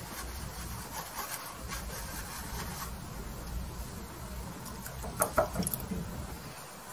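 Bristle brush scrubbing oil paint onto canvas in short dabbing strokes. About five seconds in there is a quick cluster of sharp clicks or knocks, the loudest sounds here.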